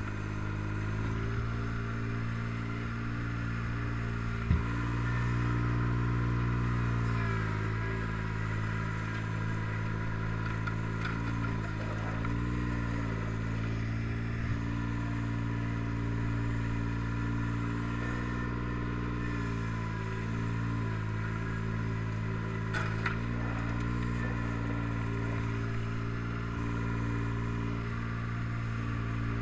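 Old John Deere lawn tractor's engine running steadily under load while pushing snow with its front blade, its pitch dipping slightly now and then. There is a sharp knock about four and a half seconds in and a couple of smaller ones later.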